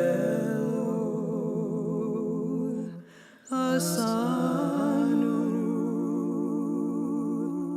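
Wordless a cappella voices hold sustained chords with vibrato in two long phrases, breaking off briefly about three seconds in.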